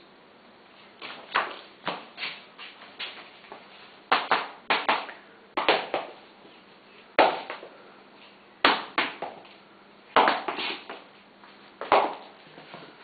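Sharp taps at irregular intervals, about twenty, some coming in quick runs of two or three, with a short echo after each.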